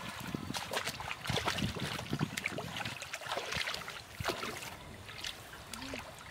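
Irregular splashing and sloshing in shallow water: a hooked fish thrashing at the surface on a fishing line while a person wades in to grab it.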